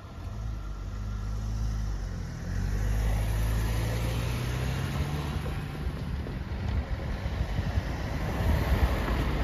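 Cars pulling away and driving across a level crossing. One car's engine note rises as it accelerates close by, then comes the rougher engine and tyre noise of cars passing, with a few thumps near the end.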